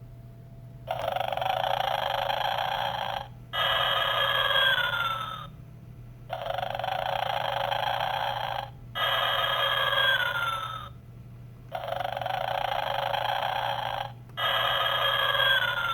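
Animated Santa figure's recorded snoring from a small built-in speaker: three snore cycles, each a snore on the in-breath followed by an out-breath with a whistle that falls in pitch, repeating about every five and a half seconds over a steady low hum.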